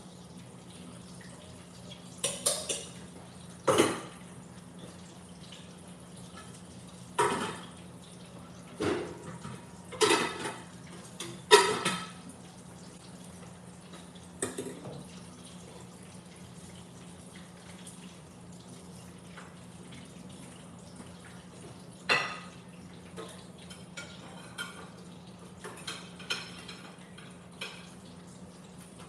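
A serving spoon and dishes clinking and knocking as food is dished onto a plate: a dozen or so separate clinks, bunched in the first half and lighter near the end. A steady low hum runs underneath.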